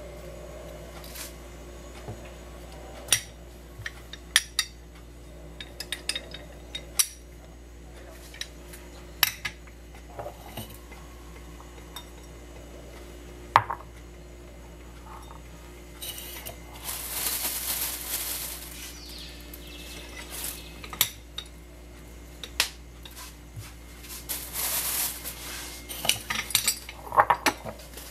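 Kitchen-counter handling sounds: scattered sharp clicks and knocks of a pepper mill, bowl and glass jars being picked up and set down on tile. About halfway through, and again near the end, there is a stretch of rustling.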